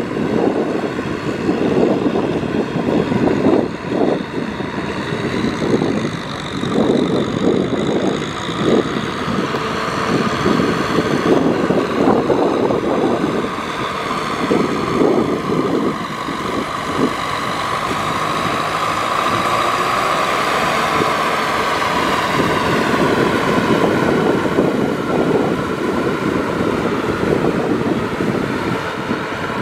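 Kubota tractor's diesel engine running under load as it pulls a rotary tiller through flooded paddy mud, uneven in the first half and steadier later.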